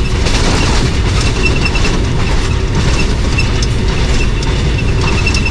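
Passenger train running along the track: a loud, steady rumble of wheels on rail, with light high ticks now and then.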